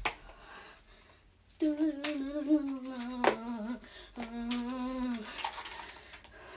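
A girl humming two long held notes, the first slowly sinking in pitch and the second steady and a little lower, broken by a few sharp slaps as the juggling balls land in her hands.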